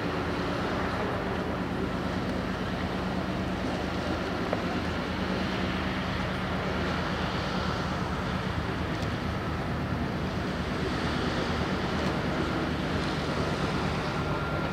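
A ship's engines running with a steady low hum, under wind and water noise.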